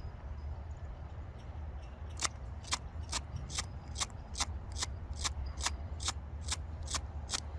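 Ferro rod of a Zippo fire-starting multi-tool struck repeatedly with its striker, starting about two seconds in: about a dozen short, sharp scrapes, a little over two a second, throwing plenty of spark.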